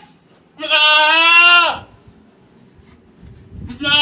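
Goat bleating loudly twice: one long bleat of about a second, then another starting near the end.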